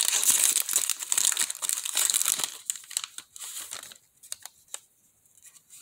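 Foil Pokémon TCG booster pack wrapper crinkling loudly as it is torn open and the cards are pulled out. About halfway through this gives way to soft clicks and rustles of the cards being handled.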